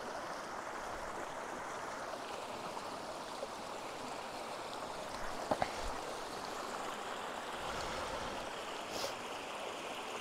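Fast-flowing mountain stream rushing steadily, with a brief knock just past halfway and a fainter click near the end.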